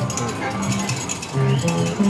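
Fruit machine playing a jingle of short electronic beeping notes, with clinking and clicking mixed in.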